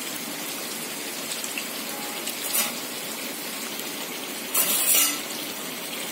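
Steady hiss of stovetop cooking on a gas stove, with two short louder rushes of hiss about two and a half and four and a half seconds in.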